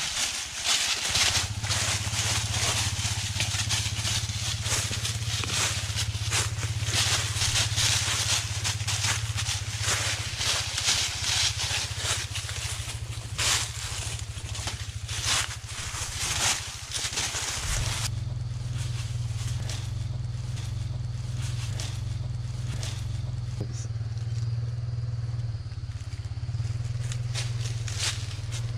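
Footsteps crunching and rustling through dry fallen leaves, over a steady low rumble. The crunching stops a little past halfway, leaving only the rumble.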